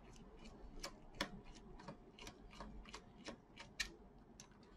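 Faint, irregular small clicks, two or three a second, from a precision screwdriver turning a tiny set screw out of a laptop's bottom case.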